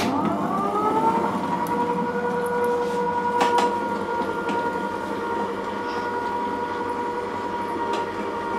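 Borosil cold press slow juicer switched on with a click. Its motor whines up to speed within about a second, then runs with a steady hum as oranges are pressed down the feed chute. There are a couple of brief knocks about three and a half seconds in.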